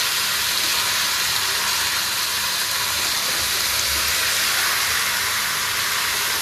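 Chicken pieces frying in hot oil with onions and ginger-garlic paste, giving a steady sizzle.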